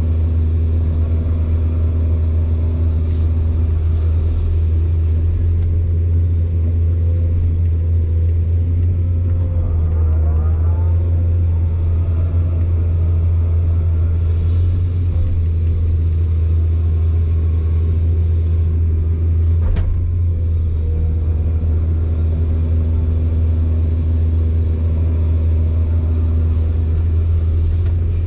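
Excavator's diesel engine running steadily at idle, a deep even rumble. There is a brief wavering whine about ten seconds in and a single sharp click about twenty seconds in.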